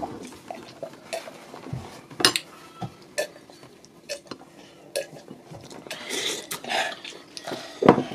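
Eating by hand from ceramic dishes: fingers scooping egusi soup from a bowl, with scattered clicks and knocks against the plates. The two loudest knocks come about two seconds in and near the end.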